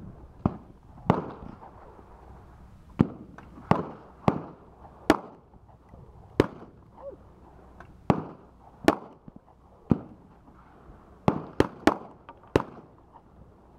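Gunshots from other shooters along the range firing line: about fifteen sharp reports at irregular spacing, some close together, each with a short echo.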